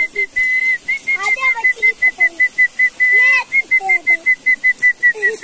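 A person whistling to call dogs: one steady high note broken into quick repeated chirps, about four a second, with a couple of longer held notes.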